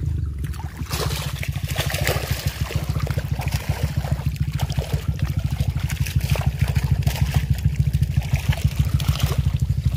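Lake water trickling and splashing off a mesh keep net of fish as it is hauled out of the water, over a low, rapidly fluttering rumble.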